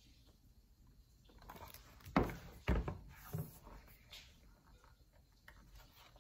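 Handling noise of a hardcover picture book being moved: faint rustling, two dull thumps about two seconds in, then a few fainter knocks.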